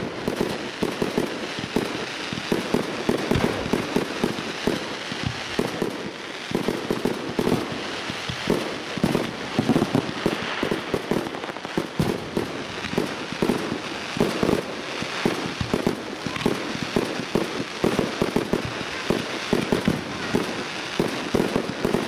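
Fireworks display: aerial shells bursting and crackling stars in a dense, unbroken run of bangs and crackle.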